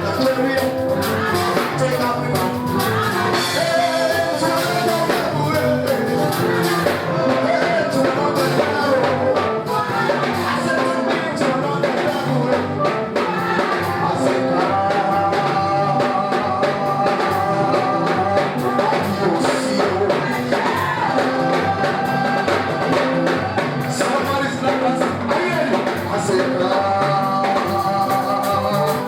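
Live gospel praise music: a church band with drums plays steadily under singing voices.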